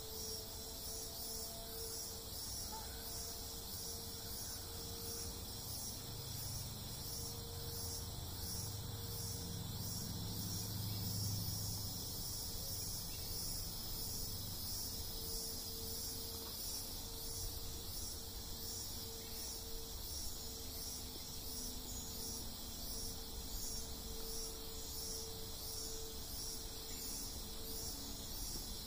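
Insect chorus in tropical forest: a steady, high-pitched pulsing buzz and trill from many insects. A low rumble swells in and out between about six and twelve seconds in.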